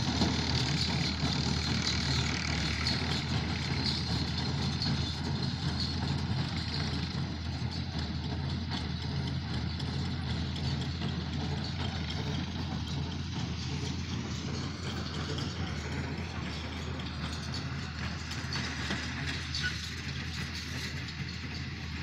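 Farm tractor engine running steadily as it pulls a small square hay baler, slowly fading as it moves away.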